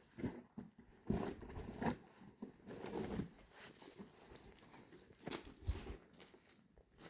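Irregular crunching steps in snow, a few soft thuds and crunches at uneven intervals.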